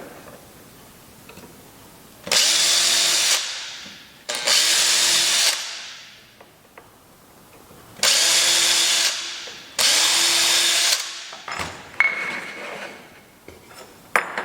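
Handheld power drill run in four short bursts of about a second each, in two pairs, each dying away as the trigger is let go, on wood work. Lighter handling noises and a sharp knock follow near the end.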